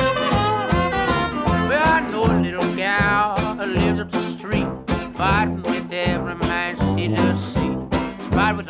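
Background music: an upbeat traditional jazz band tune with a steady beat.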